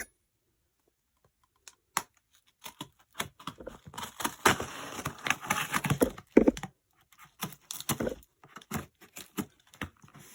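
A package being opened by hand: scattered clicks and taps, then about three seconds of tearing and crinkling packaging from about four seconds in, then more light taps.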